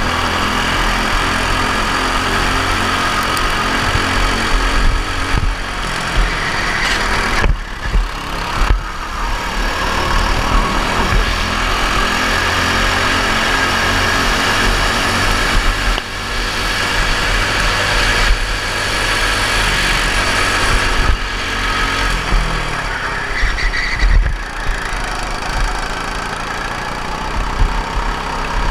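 Four-stroke racing kart engine running hard under load. Its sound drops briefly about three times, near eight, sixteen and twenty-four seconds in, and picks up again each time.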